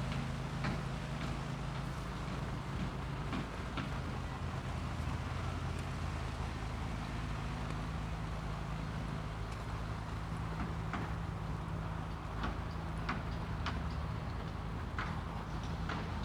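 Urban outdoor ambience: a steady low hum of vehicle traffic with scattered sharp taps and clicks.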